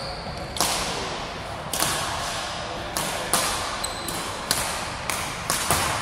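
Badminton racket strikes on a shuttlecock: a string of sharp cracks at irregular intervals, each ringing on in a large hall.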